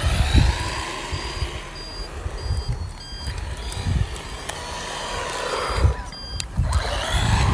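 A short high electronic beep repeating on and off, like a reversing alarm, over the electric whine of the RC chassis's hoverboard hub motors, which rises in pitch as they speed up about a second in and again near the end.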